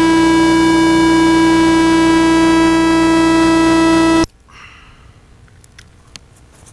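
A loud, steady buzzing tone that holds one pitch, then cuts off suddenly about four seconds in. A few faint clicks follow.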